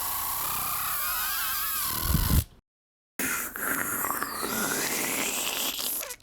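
Edited-in sound effects: a loud hissing swish with a thin wavering whistle-like tone and a low thud about two seconds in, cut off abruptly; after a half-second gap, a second hissing swish whose tone slowly rises in pitch, also ending with a sudden cut.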